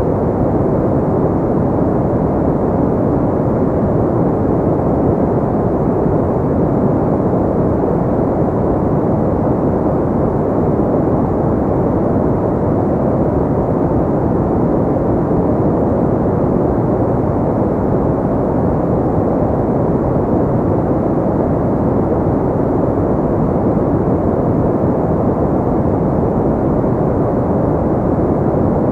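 Steady, muffled sleep-noise track: an even, deep rush with the highs cut away, more like brown noise than bright white noise, never changing.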